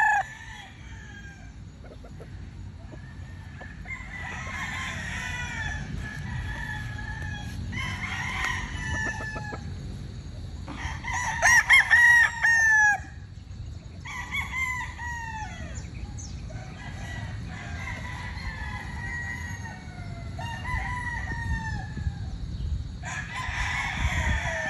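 Gamefowl roosters crowing again and again, a crow about every three seconds, the loudest about halfway through.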